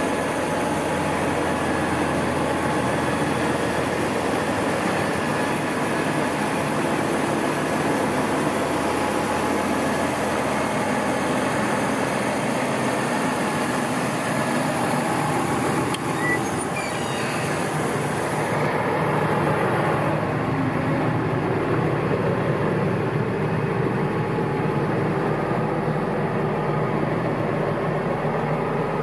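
A 2009 Massey Ferguson 6485 tractor's six-cylinder diesel engine idling steadily. About two-thirds of the way through, the sound turns duller as it is heard from inside the cab.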